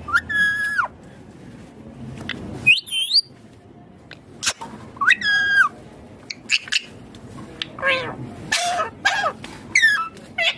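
Ringneck parakeet squawking: three separate harsh calls, then a quicker run of calls over the last few seconds.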